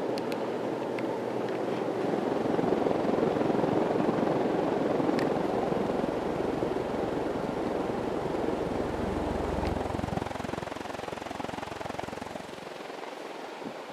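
1982 Casablanca Four Seasons ceiling fan running at full speed, its small logo tip blades making a steady rushing whoosh of air. It runs smoothly, with no bearing noise or wobble.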